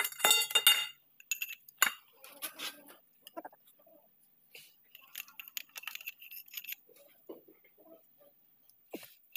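Metal clinking and knocking from tools and parts on a John Deere tractor's rear axle hub housing: a loud ringing clink at the start, then scattered lighter taps and knocks.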